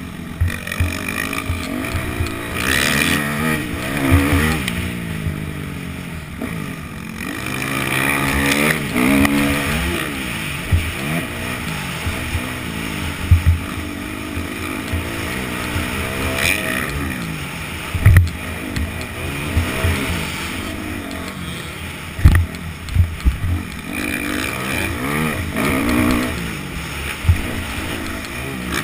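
Yamaha YZ250F four-stroke single-cylinder dirt bike engine being ridden hard, its revs climbing and dropping again and again. Short loud low thumps break in several times.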